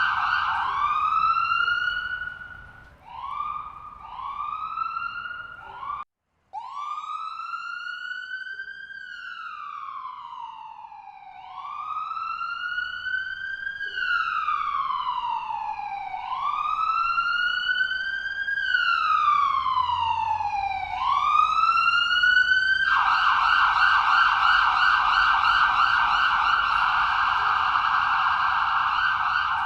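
Ambulance siren changing through its modes. It opens with a run of short rising whoops and cuts out briefly about six seconds in. It then wails slowly up and down in pitch, each rise and fall taking about five seconds, and switches to a fast yelp for the last several seconds.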